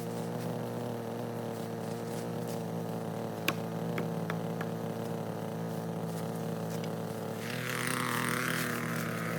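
An engine idling steadily, with a few sharp clicks about halfway through; near the end it picks up slightly with a rising hiss.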